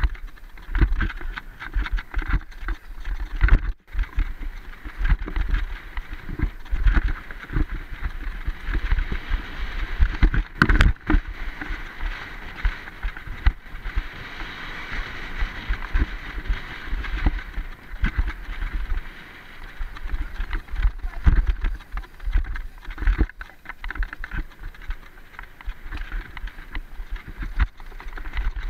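Mountain bike riding fast down a dirt forest trail, heard from a camera mounted on the rider or bike: steady tyre and trail noise with rumble and frequent jolting thumps and rattles over bumps. There is one sharp clatter about ten seconds in.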